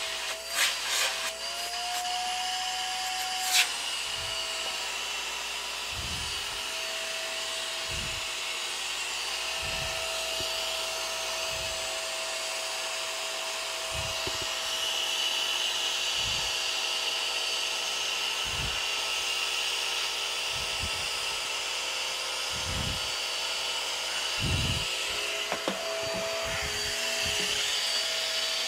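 Small canister vacuum cleaner running steadily, its motor giving a constant whine over the rush of air, while the hose and floor nozzle are worked over the floor. There are a few dull bumps now and then as the nozzle and hose are moved.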